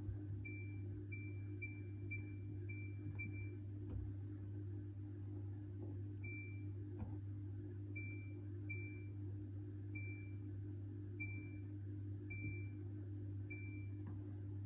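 Short high-pitched electronic beeps from a Hoover H-Wash 600 washing machine's control panel. Six come in quick succession about half a second apart, then more follow at uneven gaps of about a second, over a steady low hum.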